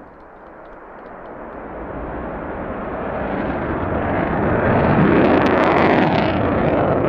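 Shaheen-1A ballistic missile's solid-fuel rocket motor in flight: a rushing noise that grows steadily louder over about five seconds, then holds, with sharp crackles near the end.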